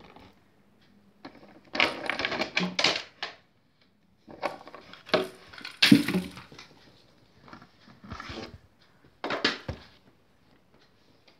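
Hard plastic toys clattering and knocking on a wooden table as a baby handles them, in several bursts of rattling clicks, the loudest about six seconds in.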